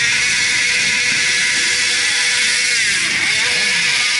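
Several motorcycles riding slowly past one after another, their engines running steadily at low revs. About three seconds in, one engine's note dips and then climbs again.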